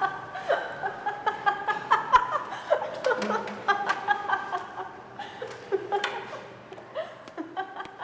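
A young woman laughing in repeated short bursts, dying away near the end.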